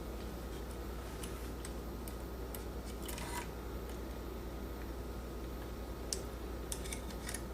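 Faint, scattered light clicks of metal and plastic parts as a manual typewriter's ribbon spools and ribbon guides are handled by hand, a handful of clicks spread over several seconds. A steady low electrical hum lies underneath.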